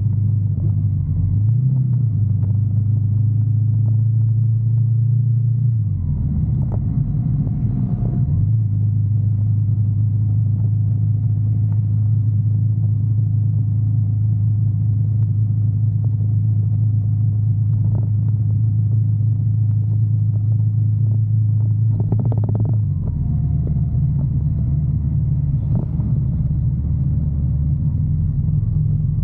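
Sport motorcycle engine running at a steady low note while riding, heard from the bike itself. The note shifts a few times, about six to eight seconds in and again near the twenty-three second mark, as the throttle and gears change.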